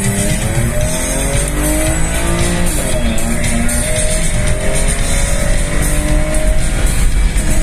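Mercedes M104 straight-six engine at full-throttle acceleration, heard from inside the cabin: a roar as the revs climb, drop at an upshift about three seconds in, then climb again through the next gear. Rock music plays underneath.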